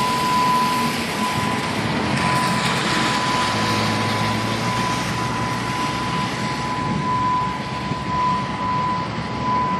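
Steady rush of traffic on an interstate highway, with a thin steady high whine running through it.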